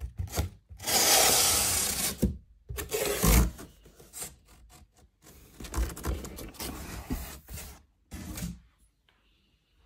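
A series of rubbing and scraping noises in irregular bursts. The loudest and longest comes about a second in and lasts about a second; the noises thin out after the middle and die away near the end.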